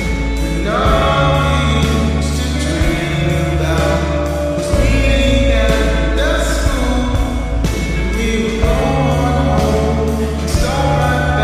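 Music: a pop song with a sung vocal line over deep held bass notes and drums, in a 'surrounded audio' spatial mix.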